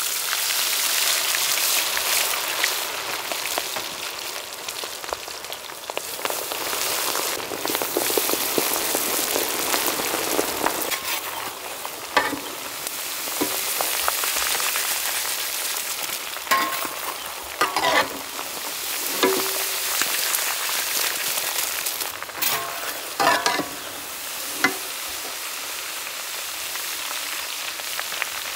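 Prawns frying in sesame oil, a steady loud sizzling hiss. Short clinks and scrapes of a utensil stirring them come in clusters through the second half.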